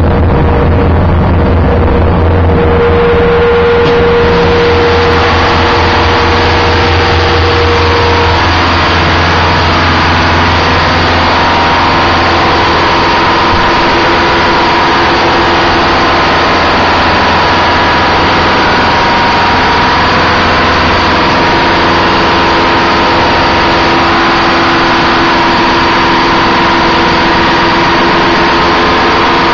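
Detroit Diesel 8V92 turbocharged two-stroke V8 marine diesel running steadily, loud and close in the engine room, with a deep hum and a hiss over it. The hiss fills in about two seconds in and then holds steady.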